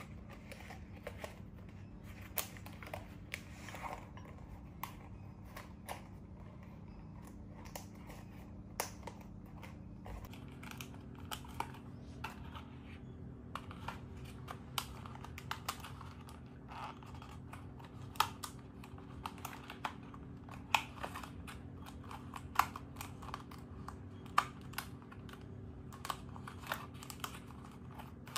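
Pleated paper lamp shade being handled and threaded onto a thin wire frame: irregular small paper crinkles and light clicks. A steady low hum runs underneath.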